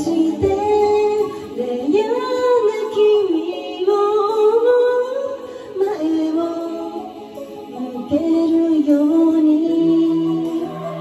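Woman singing a song with Japanese lyrics live into a handheld microphone. Her voice moves through a slow melody and holds a long steady note near the end.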